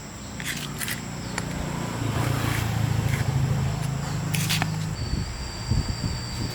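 A motor running steadily with a low hum, a little louder about two seconds in, giving way near the end to irregular knocks and clicks.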